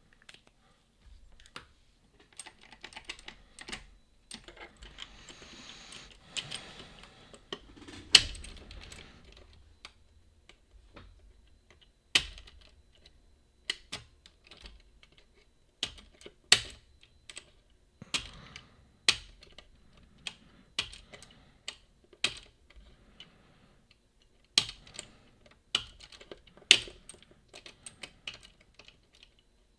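Lever-lock picks working the levers of a Boda 429 eight-lever deadbolt: irregular sharp metallic clicks and taps, some much louder than others, with a stretch of soft scraping a few seconds in.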